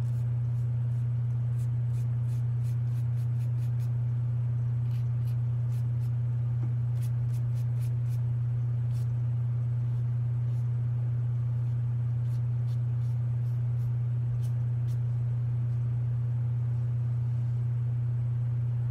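A steady low hum that stays the same throughout, with faint scattered light ticks from a watercolour brush working on paper.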